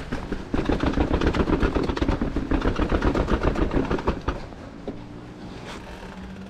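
A Cube mountain bike clattering as it is ridden over rough trail: rapid, dense rattling and knocking that eases off after about four seconds.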